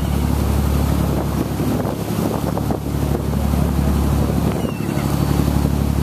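Boat engine running steadily as a low hum while under way, with the wash of the churning wake and wind buffeting the microphone.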